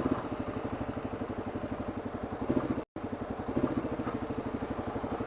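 Kawasaki KLR 650's single-cylinder engine running with a steady pulsing beat, about nine pulses a second. The sound cuts out for an instant about three seconds in.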